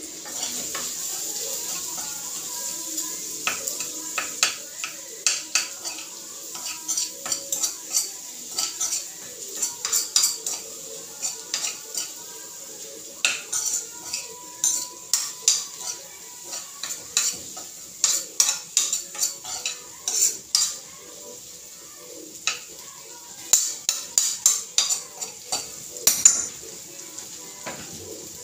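A metal spoon scraping and knocking against a nonstick wok while stir-frying diced food, in quick irregular clusters of clicks, over a steady sizzle.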